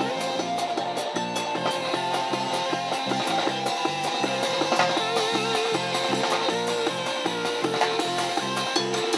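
Punk rock band playing an instrumental break: a lead guitar line with held, bending notes over bass and drums, with steady cymbal hits.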